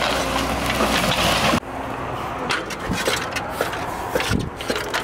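Caterpillar excavator running and crushing a house's walls, a loud dense din of engine and breaking material that cuts off suddenly about one and a half seconds in. After it come quieter scattered cracks and knocks.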